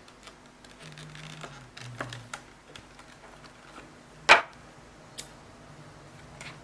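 Handling noise from a small JBL GO2 Bluetooth speaker turned over in the hands: light rustles and scattered clicks, with one sharp click about four seconds in.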